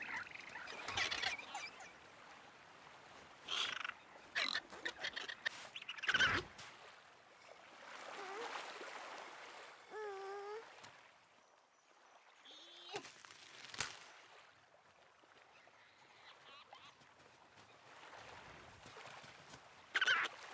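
Small waves washing gently onto a sandy beach, with a toddler's short babbling and cooing sounds and a few light taps scattered through.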